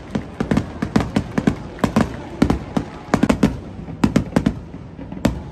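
Aerial fireworks bursting overhead: a dense, irregular run of sharp bangs and crackles, thinning briefly near the end before more bangs.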